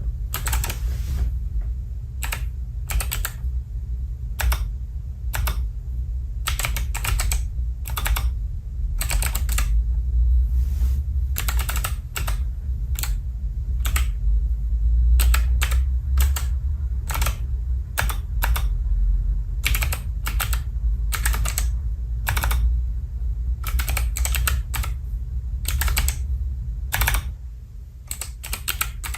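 Keys of an Alpha28 28-key keypad being typed on: irregular sharp clicks, about one or two a second, over a steady low hum.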